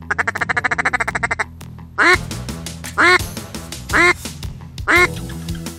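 Duck quacking over background music: a fast chattering run of short quacks, then single loud quacks with a falling pitch about once a second.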